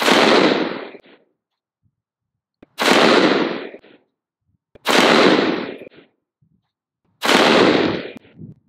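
A short-barrelled AR-15 with a 10.3-inch barrel and a four-prong flash hider, firing four aimed single shots of .223 about two to two and a half seconds apart. Each report rings out and dies away over about a second.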